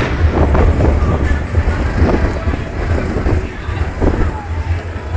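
Fireworks bursting overhead: several separate bangs with echoing tails, a second or so apart, over a steady low rumble of wind on the microphone.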